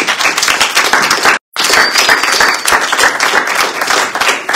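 Congregation applauding in praise, a dense, loud patter of many hands clapping. The sound cuts out completely for a split second about a second and a half in.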